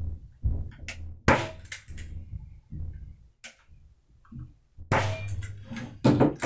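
A manual hand staple gun firing staples through linen canvas into a pine stretcher bar, fixing the stretched canvas at the corner. It makes several sharp snapping shots about one to two seconds apart.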